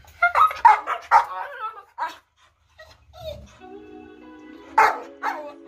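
Young Rottweiler barking: a quick run of short barks at the start, another bark about two seconds in, and one loud bark near the end.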